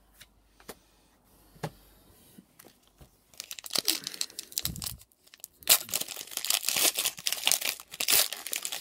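Foil Pokémon booster pack wrapper being crinkled and torn open by hand, a dense crackling that starts about three and a half seconds in, after a few faint taps.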